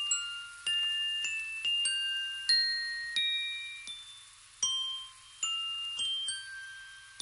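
Background music: a slow, sparse run of bell-like notes, as from a glockenspiel or music box, each struck and ringing out, the last ones fading away near the end.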